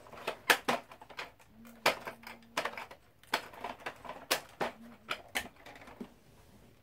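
Hard plastic parts of a Bruder John Deere 7930 toy tractor clicking and knocking as they are handled and fitted together: a string of irregular sharp clicks that thins out after about five and a half seconds.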